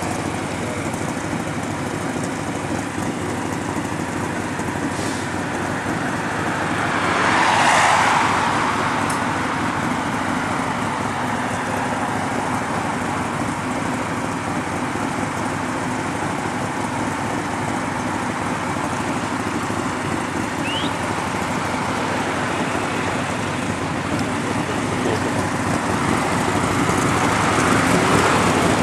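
Steady driving noise at cruising speed: the Superformance Cobra replica's 7.0-litre V8 running alongside, mixed with road and wind noise. A louder swell of noise rises and fades about eight seconds in, and the sound grows again near the end.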